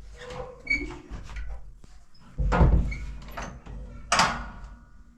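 A wooden door being handled and fitted. There are light knocks, a heavy dull thump a little over two seconds in, and a sharp scrape about four seconds in.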